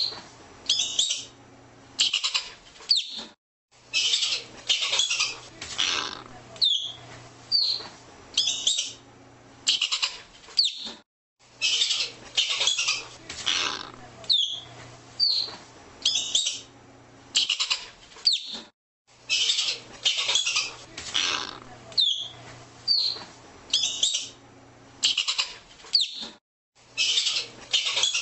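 Arctic ground squirrel calling over and over, about once a second: short high falling whistles and harsh, noisy chirping bursts.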